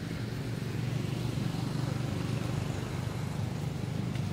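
Steady low rumble of a motor vehicle engine running, swelling slightly about a second in.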